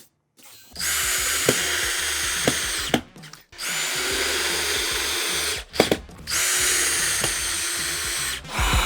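Power drill with a two-stage bit boring screw holes into a glued-up maple mounting cleat: three runs of about two seconds each with short pauses between, the pitch dipping slightly near the end of each.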